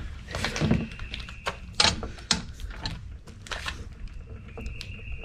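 Several sharp metal knocks and clunks from a Bowstep trailer-mounted boat step ladder as it is stepped on and then handled at its tongue mount, the loudest about two seconds in.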